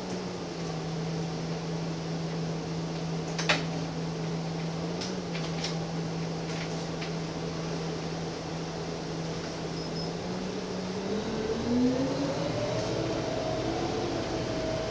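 Gillig Phantom transit bus's diesel engine and drivetrain heard from the driver's seat: a steady hum for about ten seconds, then climbing in pitch as it revs higher. A single sharp click sounds a few seconds in.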